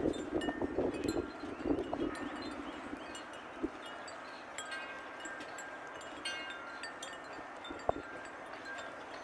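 Light metallic chimes ringing now and then in short, clear notes, over soft wind noise that is strongest in the first couple of seconds.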